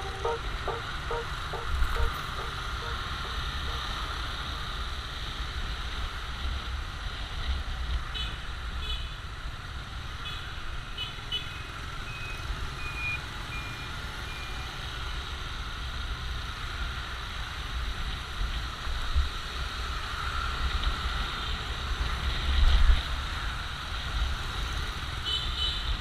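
Steady engine noise with a low rumble, and a few short high beeps about a third of the way in.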